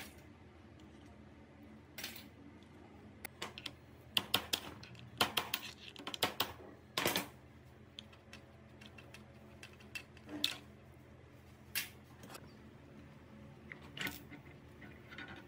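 Scattered metallic clicks and clinks of a Honda Super Cub C50's clutch springs and clutch assembly being handled and pulled off by hand, some in quick clusters, over a low steady hum.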